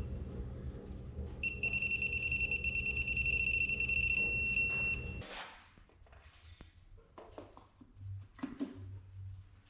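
A steady high electronic beep of about three and a half seconds from a digital torque adapter on the wrench, the signal that the rod-cap nut being tightened has reached its set torque. It sounds over a low hum; after both stop there are only a few light metal taps and clicks.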